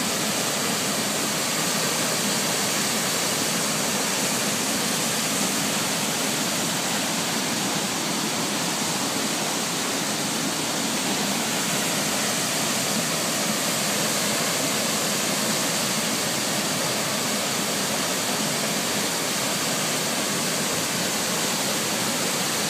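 Tall waterfall, a steady, loud rush of falling water.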